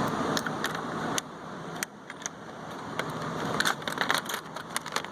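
Small metal tools and parts clinking and rattling as they are moved around in a toolbox drawer, with a quick run of clicks near the end.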